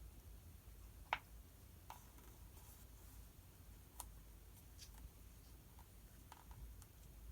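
Faint study-desk sounds: a few scattered small clicks and taps of a pen and paper, the sharpest about a second in, with brief light rustles.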